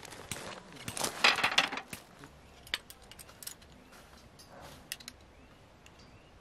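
Crunching on a gravel campsite floor about a second in, then a few light metal clinks as a metal hook and carabiner are fitted onto the top of a wooden tripod hanger stand.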